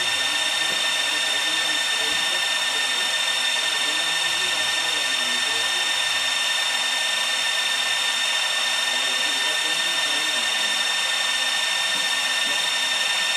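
Small electronic cooling fans under an RF amplifier running: a steady airflow rush with a constant high-pitched whine.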